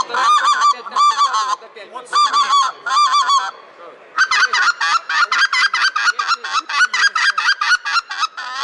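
Hand-held goose call blown in fast runs of short honks that break in pitch, about four a second. The runs stop briefly twice and pause for about half a second near the middle, then one long unbroken run follows.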